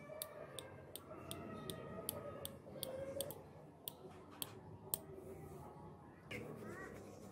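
Freshly oiled long-nose pliers worked open and shut by hand, the steel jaws and pivot clicking about twice a second; the clicking stops about five seconds in.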